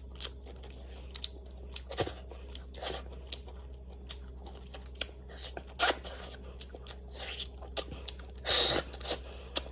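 Close-miked eating: a person chewing and biting food, with scattered small crunches and mouth clicks and a longer, louder crunch about eight and a half seconds in, over a steady low hum.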